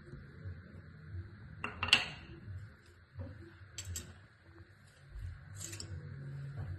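Cutlery clinking against a plate a few times as a pancake is eaten, the loudest clink about two seconds in, over a faint steady hum.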